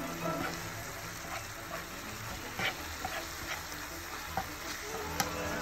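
Ground pork and onions sizzling in a Tefal frying pan, sitting in a pool of their own released meat juices. A metal spatula stirs the meat and scrapes the pan, giving short clicks about once a second.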